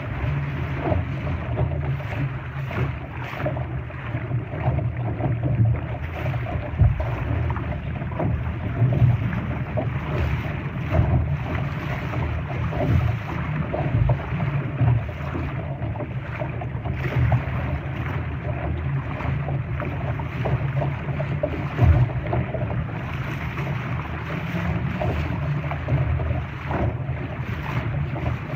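Wind buffeting the microphone and water rushing and splashing along a Laser sailing dinghy under way, with a few dull thumps.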